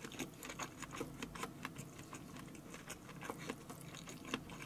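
Close-miked mouth sounds of a person chewing a mouthful of food with lips closed: faint, irregular wet clicks, several a second.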